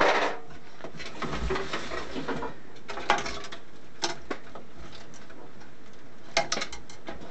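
Handling noise from the sheet-metal chassis of an old oscilloscope being turned and worked on by hand: a scraping rustle, then a few light metallic clicks and knocks, with a quick run of clicks near the end.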